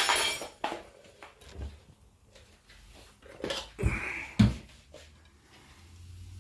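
Kitchen utensils being handled over a plate: a few light taps, then three sharper knocks between about three and a half and four and a half seconds in, as a spoon and sauce bottle meet the plate and worktop.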